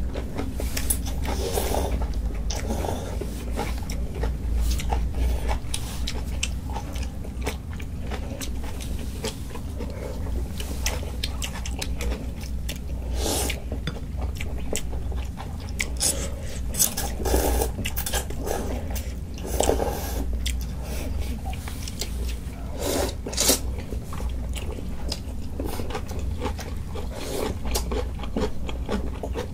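Close-up mukbang eating of janchi guksu noodle soup and kimchi: chewing and mouth sounds, with scattered crunches and short clicks and scrapes of utensils on bowls.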